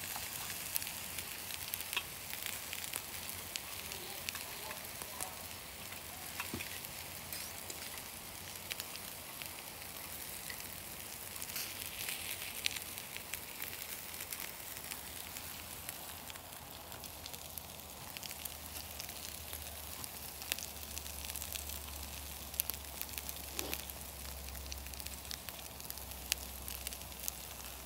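Filipino pork barbecue skewers sizzling over charcoal in a kettle grill: a steady hiss with frequent small pops and crackles.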